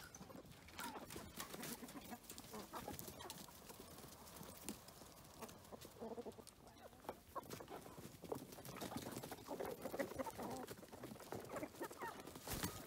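Chickens clucking quietly, with many scattered short clicks and taps among the calls.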